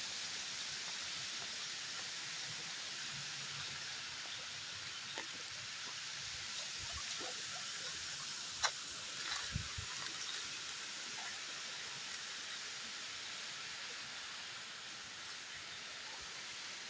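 Steady rush of a waterfall and its stream, with a few faint knocks and clicks about halfway through.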